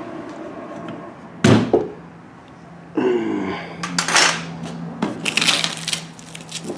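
A sharp crack about a second and a half in, then scraping and crackling as a wax-paper-wrapped wood clamping block is pried off a cured epoxy joint with a scraper blade.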